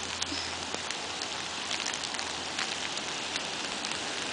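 Steady rain with frequent small ticks of drops hitting nearby surfaces.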